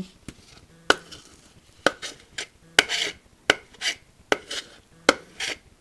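Irregular sharp clicks and taps, about one a second, a few followed by a short scraping rustle.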